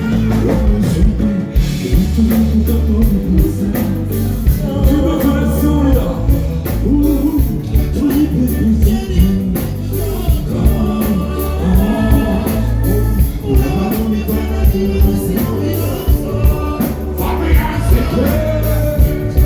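Loud live music with a heavy bass beat and a singing voice, through a concert sound system.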